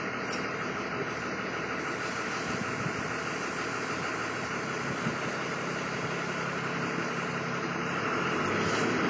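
A steady engine hum, like a vehicle idling, growing a little louder near the end.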